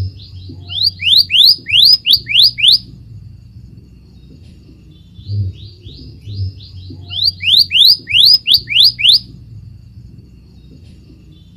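Scarlet minivet song: two phrases of quick up-slurred whistles, each starting with a few soft notes and building to a run of about six loud rising notes at roughly four a second. The second phrase comes about six seconds after the first and matches it exactly. A steady low hum runs underneath.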